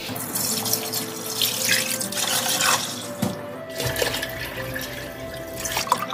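Water pouring in a stream into a large pot and splashing over chunks of raw beef shank, with a brief break a little past the middle. Background music plays underneath.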